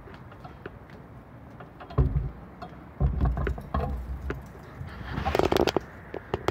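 Handling noise from a phone camera being moved about, with scattered clicks and low thumps about two and three seconds in. Near the end comes a short burst of crackly rustling, like leaves or a cane brushing against something.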